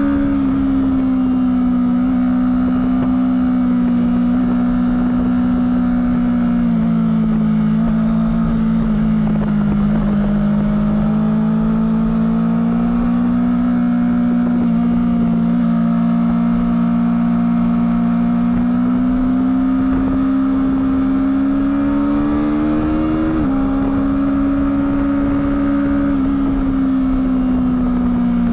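Honda CBR250RR motorcycle engine on its stock exhaust, running steadily under way at a fairly high pitch that eases up and down with the throttle. The pitch drops about seven seconds in and jumps up suddenly about five seconds before the end.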